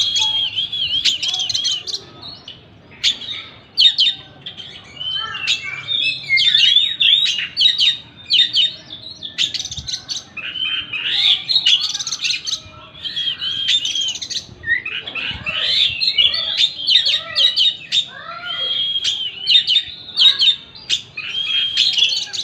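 Oriental magpie-robin (kacer) singing a varied song of quick chirps and whistles, in phrases with short pauses between them.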